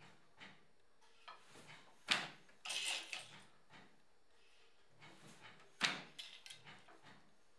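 Wooden hand loom weaving: the reed beats the weft into the cloth with a sharp wooden knock twice, about two and six seconds in. A brief rattling clatter of the loom follows the first knock.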